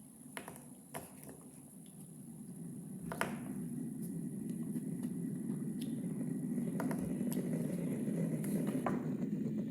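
Sonified spacecraft data from Mercury played back: a low, wind-like hum that swells about three seconds in, with scattered clicks and pops and a faint thin high tone in the second half.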